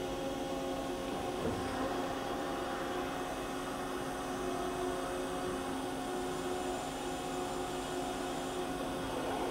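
Makino MC86 horizontal machining center running through a pallet change: a steady mechanical hum with several steady tones, and a faint knock about a second and a half in.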